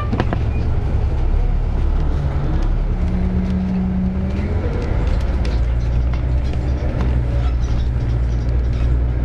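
SEPTA city bus heard from inside at the front while driving through city streets: a steady low engine drone, a brief held whine that gives way to a rising one partway through, and scattered small rattles from the cab fittings.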